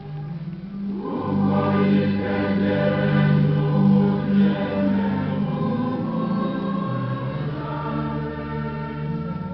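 Choir singing a hymn in sustained, held chords, growing fuller about a second in.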